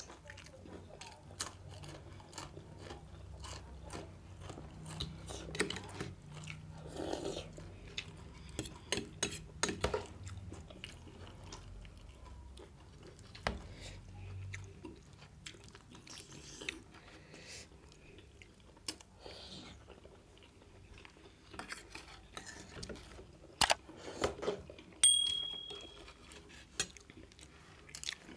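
Close-up chewing and biting of food, beetroot momos and poori, with wet mouth clicks throughout. Near the end come a few sharper knocks and a short ringing clink, which are the loudest sounds.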